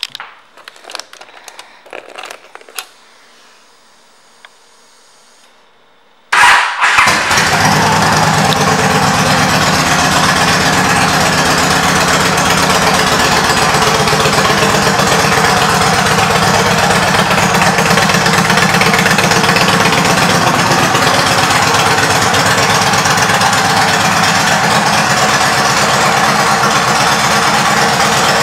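A few clicks and knocks, then about six seconds in the 2007 Yamaha V Star 1300 Tourer's V-twin engine starts with a loud burst through its Cobra aftermarket pipes and settles into a steady idle.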